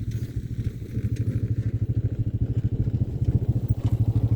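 Small off-road vehicle engine idling with a steady, even pulse.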